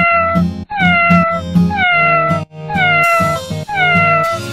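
Cat meows repeating about once a second, each call sliding down in pitch, over steady background music.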